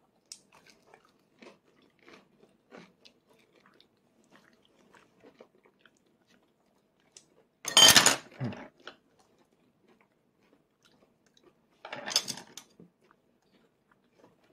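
A toddler eating: faint small chewing and mouth clicks, with two louder noisy bursts of about a second each, about eight and twelve seconds in.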